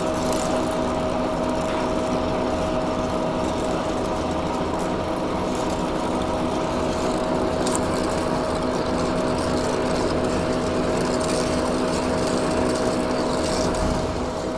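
Horizontal boring mill driving a large twist drill through a steel threaded rod stuck in a clevis, drilling the rod out. The machine runs steadily, a hum with a few steady tones over the cutting noise.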